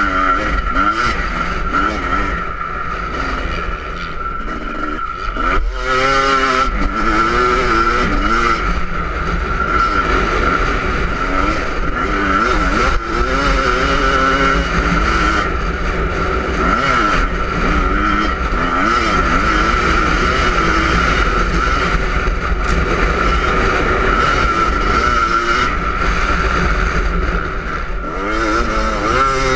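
Yamaha YZ250 two-stroke motocross bike ridden hard, its engine revving up and down through the gears, with sharp bursts of revs about six seconds in and again near the end. Strong wind buffets the microphone throughout.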